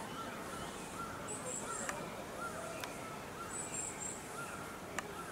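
Outdoor ambience of birds chirping: a short call repeating about twice a second, with a high twittering call every couple of seconds and a few faint sharp clicks.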